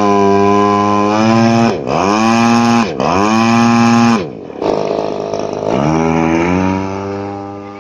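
A 20cc single-cylinder two-stroke petrol engine on an RC model plane runs on the ground at a steady idle. Twice its revs drop sharply and pick back up as the throttle is worked. Near the end it revs higher and the sound fades as the plane rolls away on its takeoff run.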